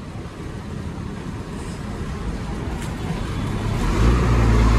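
Bus engine running as the bus moves slowly, heard from inside the non-AC bus. Its low rumble grows steadily louder and becomes much stronger about four seconds in.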